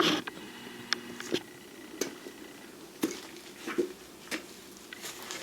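Light clicks and knocks of objects being handled and set down, roughly one a second.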